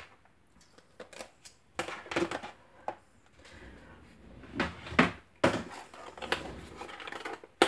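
Irregular clicks, taps and light knocks of craft supplies being handled on a work surface.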